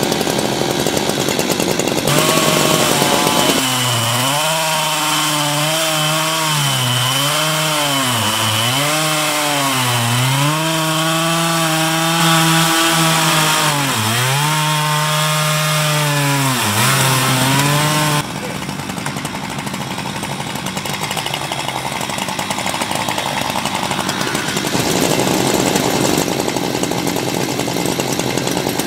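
Two two-stroke Husqvarna chainsaws on a double-ended Alaskan chainsaw mill, running at full throttle and ripping through a large log; their pitch dips again and again as the long bar loads in the cut and then picks back up. About two-thirds of the way through the note gives way to a rougher, somewhat quieter running noise.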